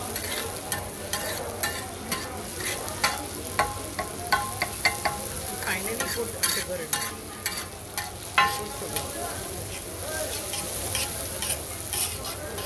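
Metal spatula repeatedly striking and scraping a large flat griddle (tawa) while chopped onion, tomato and green chilli sizzle in oil. This is the frying of the onion-tomato base for egg bhurji. The strikes come at an irregular pace, some with a brief metallic ring, over a steady sizzle.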